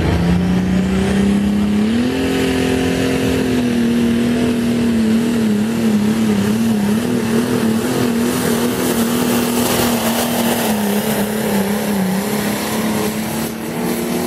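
Turbocharged limited light super pulling tractor's engine at full throttle, hauling the weight-transfer sled down the track. Its note climbs about two seconds in, wavers rapidly up and down through the middle of the pull, then dips and holds near the end.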